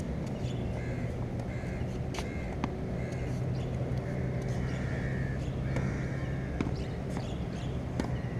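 Birds calling repeatedly in the distance, over a steady low hum, with a few faint knocks.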